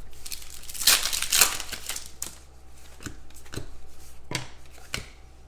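Trading cards being handled by hand: a crinkly, sliding rustle about a second in, then a few scattered light clicks and taps as the cards are flicked through and set down.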